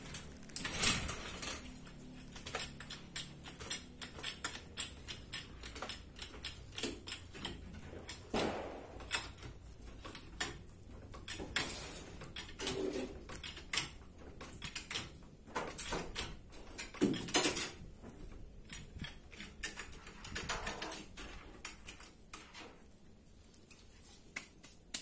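Small hydraulic trolley jack being pumped by hand to lift the rear of a pickup: a long series of short clicks and knocks, with several louder clunks spread through it.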